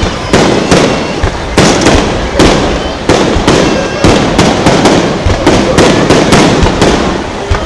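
Aerial fireworks shells bursting in a dense barrage, about two to three booms a second with no let-up, overlapping one another.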